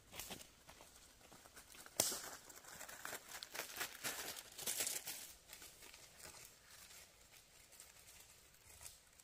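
Dry fallen leaves crackling and rustling underfoot in irregular bursts, loudest about two seconds in and again around four to five seconds, then fading to occasional faint crackles.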